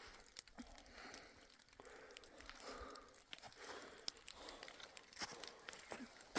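Faint footsteps crunching through snow, one soft crunch roughly every half second to second.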